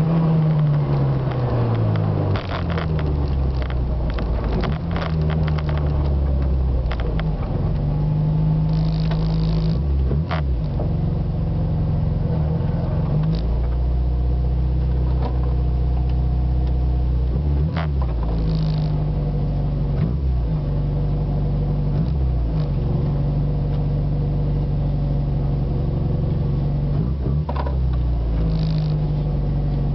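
Yugo 1.6's engine heard from inside the cabin, its revs falling over the first few seconds as the car slows, then running steadily at low revs as it creeps along, with a few short rattles.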